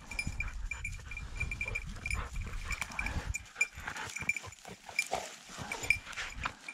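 Small bell on a bird dog's collar tinkling irregularly as the English setter moves about, with low rustling that dies away about halfway through.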